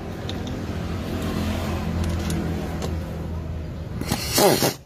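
A steady low engine hum, then about four seconds in a short, loud burst from an impact wrench.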